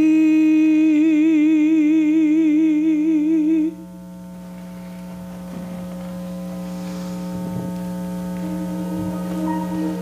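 Stage-musical pit music: one loud held note with a wide, even vibrato over a steady sustained chord. The held note cuts off suddenly about four seconds in, leaving the chord to sustain, and a new note comes in near the end.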